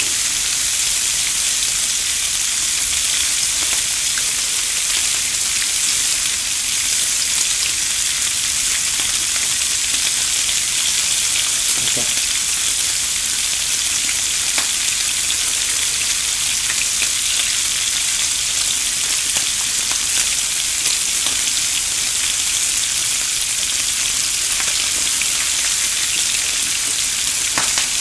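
Pork belly slices and whole garlic cloves sizzling steadily on a hot tabletop grill pan, a constant frying hiss with scattered small pops.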